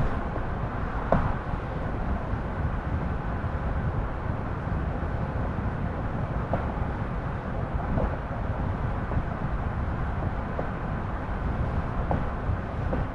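Steady road and engine noise of a car driving at speed, with a few faint light ticks now and then.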